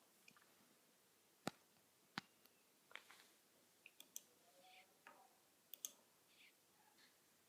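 Faint, scattered sharp clicks and taps of a cat pawing and biting at headphones, irregular, with two louder clicks about a second and a half and two seconds in.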